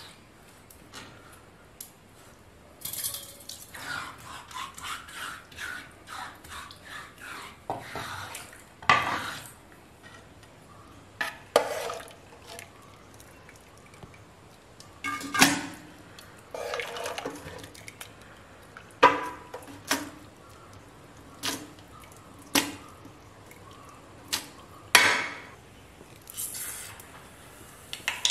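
Pots and kitchen utensils clinking and knocking in a string of separate sharp knocks and scrapes, with a quick rhythmic run of scraping a few seconds in.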